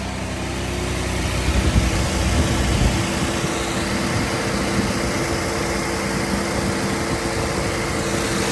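2012 Cadillac SRX's 3.6-litre V6 idling just after an oil change, with an uneven low rumble in the first few seconds that settles into a steady hum.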